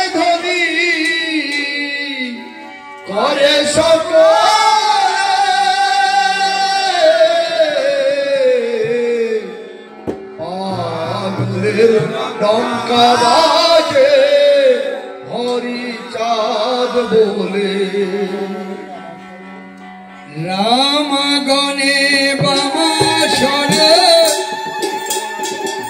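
Devotional kirtan singing in long, sliding phrases with drum accompaniment, the voice pausing briefly between phrases.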